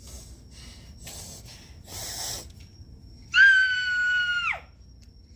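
A few short breathy puffs, then a person's high-pitched vocal squeal, held for about a second and sliding down in pitch as it ends, made as a silly sound.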